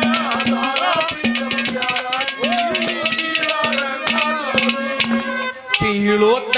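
Instrumental interlude of a live Haryanvi ragni band: harmonium melody over steady held tones, with fast, dense hand-drum strokes and jingling percussion. Near the end there is a brief dip, then a held low note.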